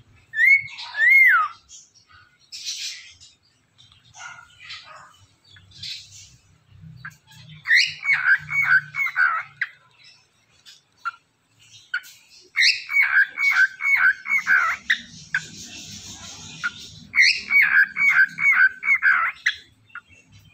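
Pet cockatiel whistling: two loud slurred whistles near the start, then three runs of quick, repeated falling notes, with softer chirps and chatter in between.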